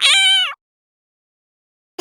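A cat meowing once: a single short meow of about half a second, steady in pitch and dropping slightly as it ends.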